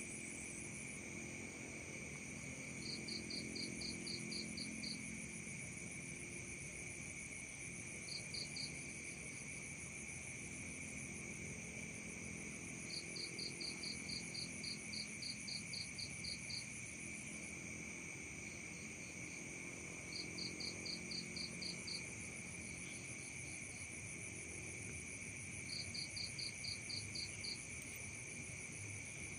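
Night chorus of crickets and other insects: several steady high trills. A higher pulsed chirping, about five pulses a second, comes in runs of one to four seconds, five times.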